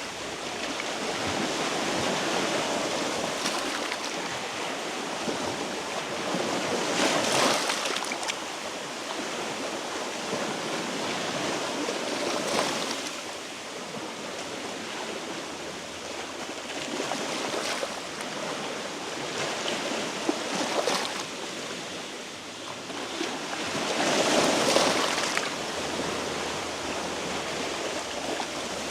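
Sea waves washing against a rocky shore, a steady wash that swells louder every few seconds as a wave breaks.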